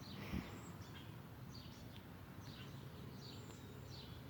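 Faint background birdsong: short high chirps repeating every half-second or so. A soft low thump about a third of a second in.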